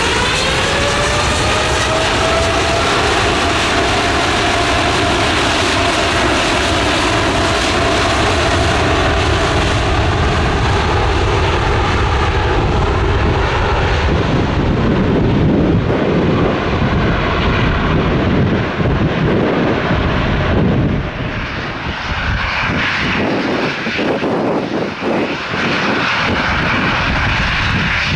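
Jet airliner engines: their whine rises in pitch over the first couple of seconds and then holds steady, giving way from about halfway through to a deep, broad rumble that swells and wavers unevenly toward the end.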